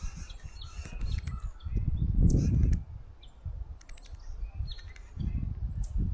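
Birds calling with short chirps and whistles, several of them sweeping downward in pitch, along with a few sharp clicks. A low rumbling noise runs underneath, loudest about two seconds in and again near the end.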